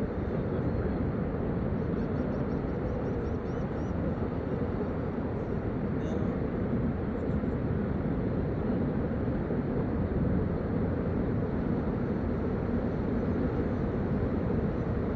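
Steady vehicle running noise: an even low rumble with hiss that does not rise or fall.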